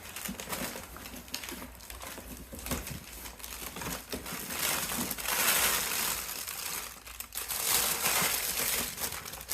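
Packaging being opened and handled: irregular crinkling and rustling with small clicks, louder for a couple of seconds about five seconds in and again near the end.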